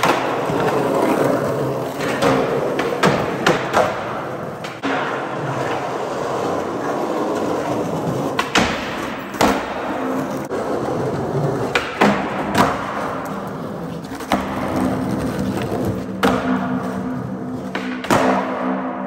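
Skateboard wheels rolling on smooth concrete, broken by repeated sharp clacks of tails popping and boards landing or slapping the ground; near the end a loose board clatters down.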